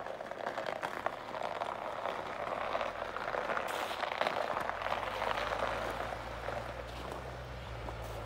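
A dense crackling hiss with many small clicks fills the first half. About halfway through, the low steady drone of the Chevrolet ZR2's Duramax diesel engine running comes in underneath and holds.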